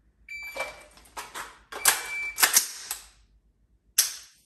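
A shot timer gives its start beep, then a second par-time beep about 1.5 seconds later, over the clatter of an AR-style rifle being handled: a magazine seated and the charging handle racked. A single sharp click about four seconds in as the rifle is dry-fired on target.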